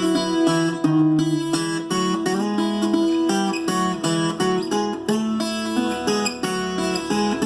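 Rozzini viola caipira, the Brazilian ten-string folk guitar, played as a melody of plucked notes, several a second, often two notes sounding together.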